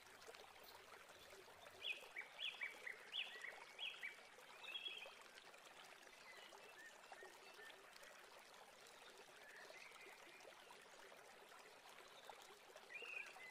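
Faint swishing of a wire whisk stirring thick milk pudding in a stainless steel saucepan, with a run of short high chirps about two seconds in and again near the end.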